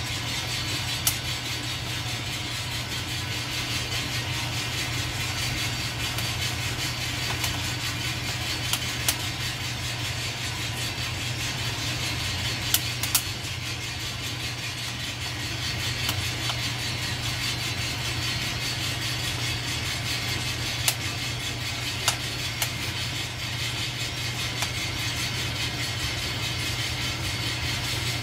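Hand-cranked stainless-steel drum coffee roaster turning over a gas burner: coffee beans tumbling in the drum over a steady rush and hum, with a few sharp clicks scattered through.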